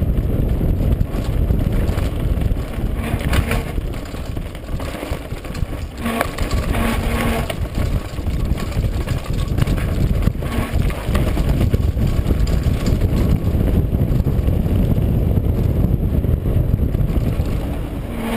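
Wind rumbling on a camera microphone, with the rattle and crunch of a mountain bike descending fast over a rocky, gravelly trail; the clattering grows harsher about 3, 6 to 7 and 10 seconds in.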